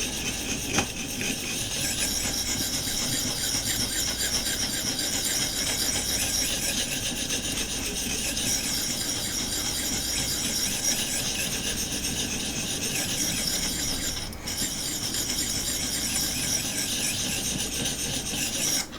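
Sharpening stone (400 grit) of a guided-rod knife sharpener rubbing back and forth along a knife's edge in steady, even strokes, raising a burr on the second side of the bevel. There is a brief break about fourteen seconds in, and the strokes stop suddenly just before the end.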